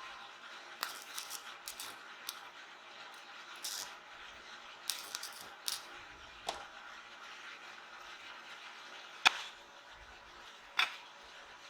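Hand-tool and workpiece handling sounds: scattered light clicks and scrapes, then two sharp knocks about a second and a half apart near the end.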